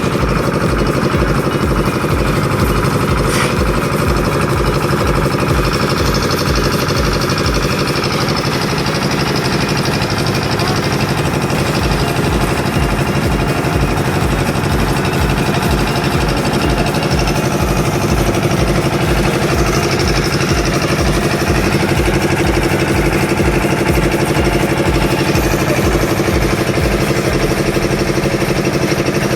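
Engine of concrete-pouring machinery running steadily, with an even low chugging.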